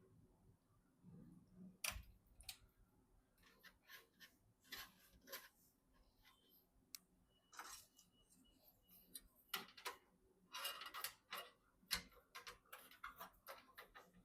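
Faint, irregular clicks and ticks of small hardware being handled during PC assembly, some in quick runs, the sharpest about two seconds in and again toward the end.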